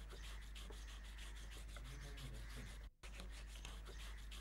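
Rapid, even rasping strokes of hand-sanding or scraping on a dry tree root, about five strokes a second, breaking off for a moment about three seconds in.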